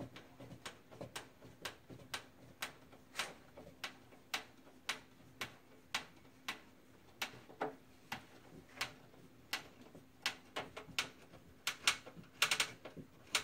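Hand screwdriver turning a screw into a pre-drilled hole in fiberboard: a light click about twice a second as the handle is turned and regripped, with a quick run of clicks near the end.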